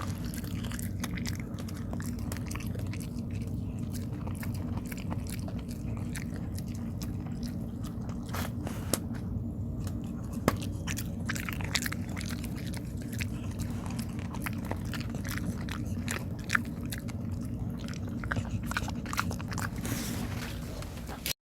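Dog chewing and biting on tteok (Korean rice cake), with many irregular clicks and a few sharper snaps, over a steady low hum.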